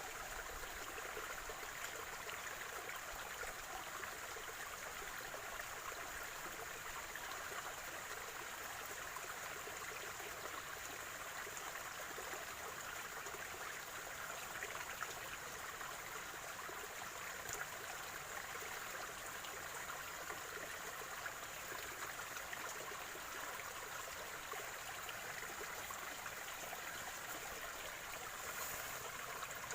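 Spring-fed stream gurgling and trickling steadily over stones, an even rush of water with no breaks.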